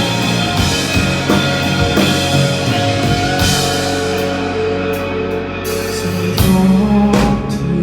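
A rock band plays an instrumental passage of a song live, with guitar and drums and no vocals. It moves to a new chord with a louder drum hit about six seconds in.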